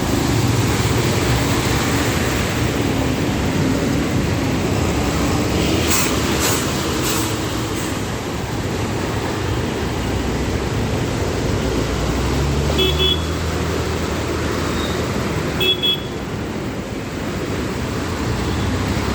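Road traffic: vehicle engines running steadily, with two short horn toots in the second half.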